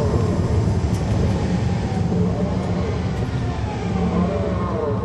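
2009 NABI 40-foot suburban transit bus under way, heard from on board: its Caterpillar C13 diesel running steadily with a whine from the drive axle that rises and falls in pitch with road speed, most clearly in the last couple of seconds.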